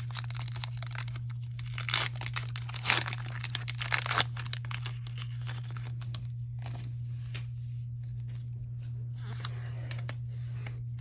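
Foil Pokémon booster pack being torn open and crinkled, with sharp crackles and several louder rips in the first few seconds, then softer rustling as the wrapper and cards are handled. A steady low hum runs underneath.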